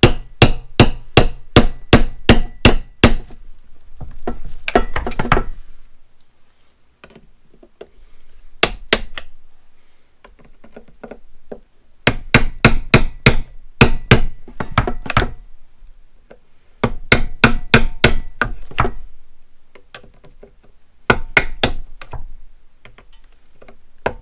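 A claw hammer striking the handle of a flathead screwdriver in several runs of quick blows, about four a second, with pauses between, punching a backup camera that is locked into a plastic camera housing out from the front.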